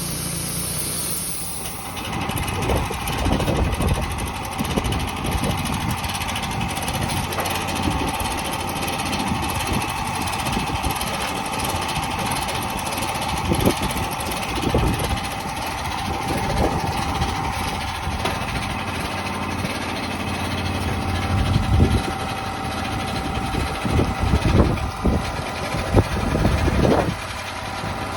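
Wood-Mizer LT28 band sawmill running, its blade cutting through a log from about two seconds in until just before the end, a steady whine over the engine with irregular knocks throughout the cut.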